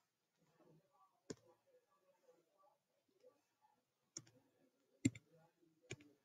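Faint computer mouse clicks, four sharp single clicks spaced unevenly, the loudest a little past the middle, made while filling a drawing's stripes with colour in a paint program.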